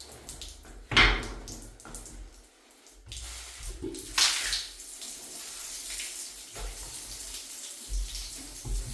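Water splashing and pouring, with a sharp splash about a second in and another about four seconds in, then a steady stream.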